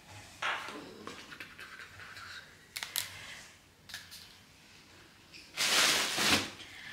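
Unpacking handling noises: light clicks and taps as bottles and small items are handled, then a louder rustle of packaging as a hand goes into a cardboard box, about five and a half seconds in.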